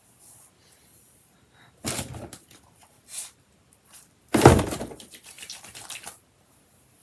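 Two sudden thuds from objects being handled, about two and a half seconds apart, the second louder. Each is followed by a brief clatter of quick clicks.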